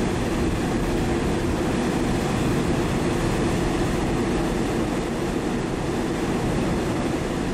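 Steady rumbling rush of a ferry under way, heard from its open stern deck: the ship's engines and propellers churning up the wake.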